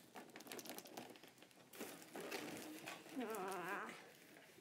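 A cardboard box shaken out upside down, its plastic-bagged contents rustling and crinkling as they fall. About three seconds in, a short wavering sound like a voice.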